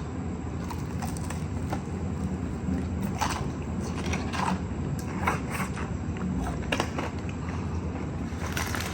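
Steady background hum with a handful of short clicks and rustles from handling food and packaging at the table.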